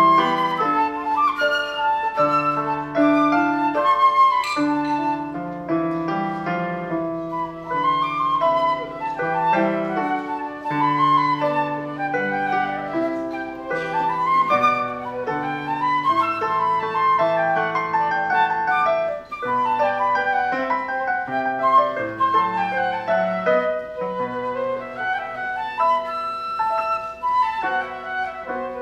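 Concert flute playing a classical solo melody with piano accompaniment, moving continuously through many notes over sustained lower chords.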